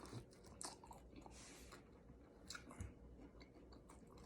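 Faint, close-miked chewing and biting of a birria taco: soft wet clicks and smacks, with a short crunchy rustle about a second and a half in.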